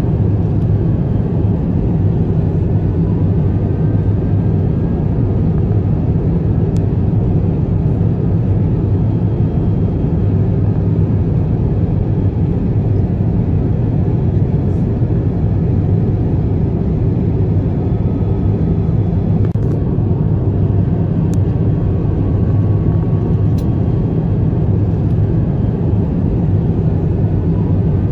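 Steady low rumble of a commercial airliner's engines and rushing air heard inside the cabin in flight.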